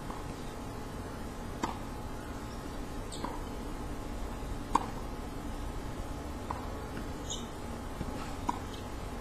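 Outdoor tennis-court ambience: a steady low background rumble with a handful of short, sharp pops scattered a second or two apart, the loudest near the middle.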